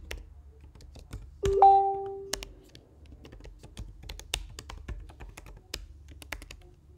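Typing on a computer keyboard: a run of quick, irregular key clicks. About a second and a half in, a short steady tone sounds for about a second.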